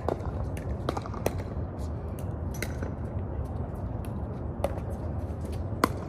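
Pickleball paddles striking plastic balls in rallies: a string of sharp, irregularly spaced pocks over a steady low rumble.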